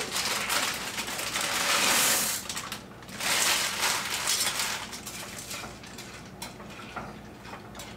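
Plastic bag of dry egg noodles crinkling and rustling in two long bursts as it is opened and tipped into a pot of boiling water, followed by softer clicks of a utensil stirring in the pot.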